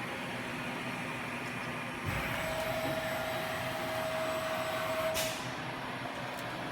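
SuperTec G32P-60 CNC cylindrical grinder running with a steady hum. About two seconds in there is a low thump, then a steady whine with hiss for about three seconds, which ends in a short burst of hiss.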